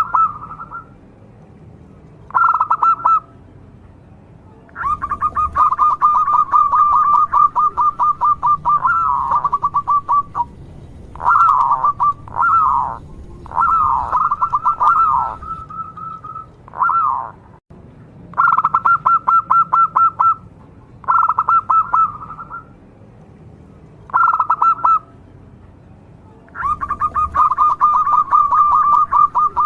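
Local zebra dove (perkutut) cooing in a run of phrases: short staccato coos and longer rapid pulsing trills lasting up to several seconds, with brief pauses between them.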